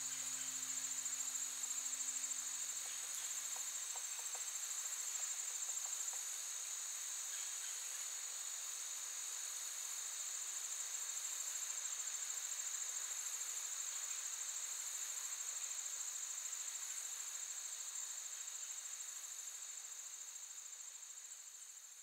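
Insects giving a steady, high-pitched trill, with a low hum underneath that stops about four seconds in. The trill fades out near the end.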